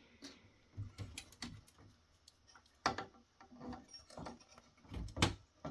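Irregular clicks and knocks of heatsink push pins and their springs being pried and pulled off a network switch's circuit board, with sharper knocks about three and five seconds in.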